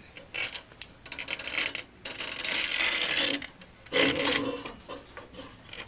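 Irregular clicking, rattling and scraping of metal, with one longer rasping scrape about two seconds in. This fits a snake inspection camera's cable and head being worked into a furnace's burner and heat exchanger opening.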